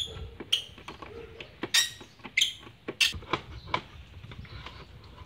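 Hand tools clinking on metal under the hood: a series of about half a dozen sharp, separate clinks with a short ring, the loudest around the middle.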